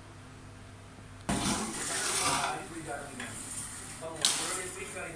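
A metal spoon stirring and scraping cooked rice in a large steel pot, with a sharp metal clink about four seconds in. It starts abruptly just over a second in, after a faint steady hum.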